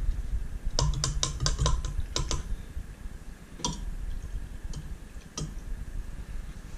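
A thin metal rod clicking against the side of a clear plastic cup as blue dye pigment is stirred into solvent: a quick run of about eight ticks in the first couple of seconds, then a few single ticks.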